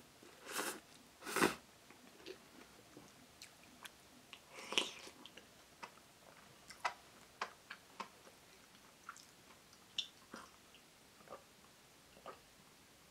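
A person eating thick instant udon noodles: chewing and biting, with two louder eating sounds in the first second and a half, then scattered light clicks of chopsticks and a wooden spoon against a ceramic bowl.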